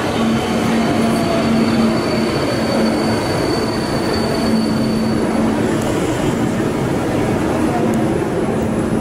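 Alstom Metropolis metro train running into a station and slowing to a stop, a steady loud rumble with a hum under it. A thin high whine runs over the rumble and stops a little past halfway through.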